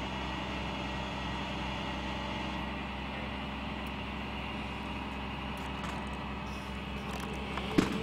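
A boom truck's engine running steadily, a low even hum. A sharp knock sounds near the end.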